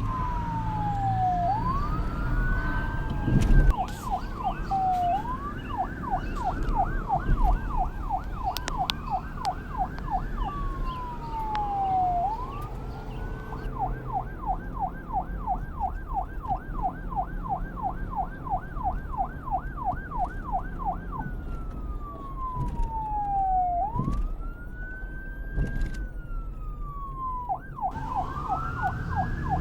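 Police car electronic siren switching between a slow rising-and-falling wail and a fast yelp of about three sweeps a second, over a low rumble.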